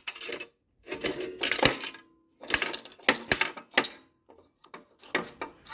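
Coins and metal parts of a 1963 payphone's coin mechanism clinking and rattling in four short bursts with pauses between.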